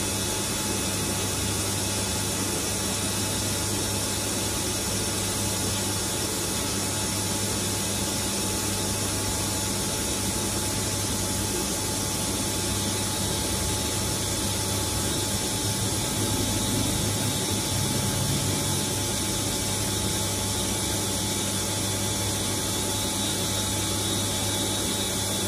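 CNC lathe turning steel, running with a steady machine noise and a constant low hum, a little louder and rougher for a few seconds past the middle.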